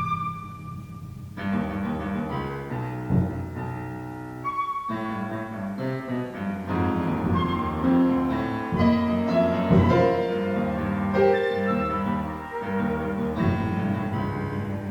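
Contemporary classical chamber music for a quintet: piano with bowed strings, playing overlapping sustained and moving notes. The texture is thin for the first second or so, then thickens.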